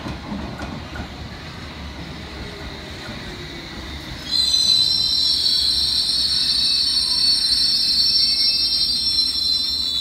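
London Underground S Stock train braking into a platform: a low rumble with a faint falling whine, then about four seconds in a loud, high, steady squeal of the brakes sets in as the train slows to a stop.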